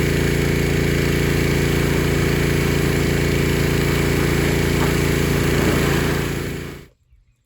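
Small gasoline engine of a pressure washer running steadily at a constant speed. It fades out about six seconds in.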